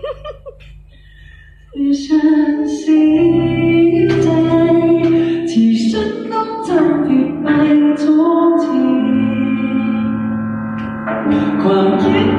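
A woman singing a melody with instrumental accompaniment through an amplified sound system; the singing comes in about two seconds in after a short lull.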